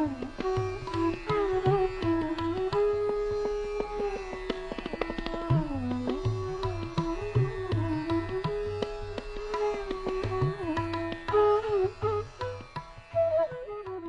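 Indian classical instrumental music: a sustained melody with sliding notes over regular hand-drum strokes.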